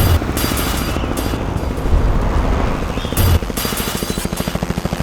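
Soundtrack music with heavy low boom hits, about three of them, then, from a little past the middle, a fast, even chopping pulse.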